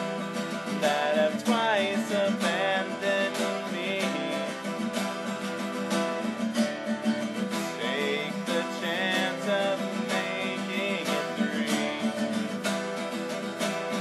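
Acoustic guitar strummed steadily, with a voice singing two long wavering phrases over it, one near the start and one about halfway through.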